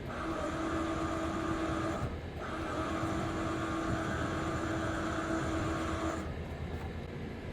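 Electric RV leveling jack motor running with a steady whine as it drives the jack foot down. It runs for about two seconds, stops briefly, then runs again for about four seconds before cutting off.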